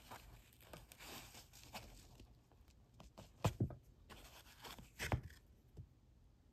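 Packaging rustling and crinkling as jewelry is handled and unwrapped, fading after about two seconds, then two short knocks about three and a half and five seconds in.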